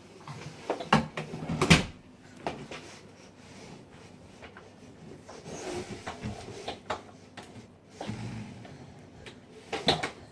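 A series of knocks and bumps of hard objects being handled, with a cluster of sharp ones about a second or two in and another loud knock near the end. No vacuum motor is running.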